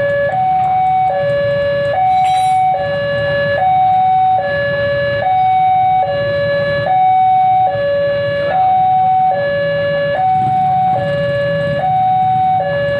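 Railway level-crossing warning alarm sounding its electronic two-tone signal, a low note and a high note alternating evenly, about one pair every second and a half, which warns that a train is coming and the crossing is closed. Motorcycle engines idle underneath.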